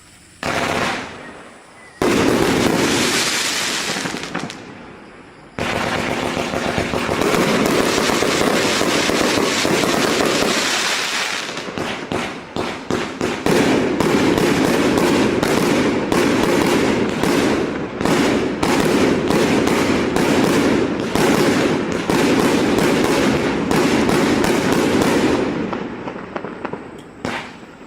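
A 148-shot consumer fireworks cake firing its 0.8-, 1- and 1.2-inch shells: a few separate shots over the first few seconds, then a rapid, almost continuous string of launch thumps and bursting shells.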